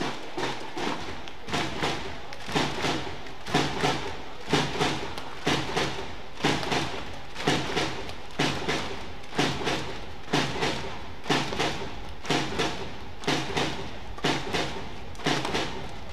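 Steady thumping beat, about one hit a second, over a low steady hum.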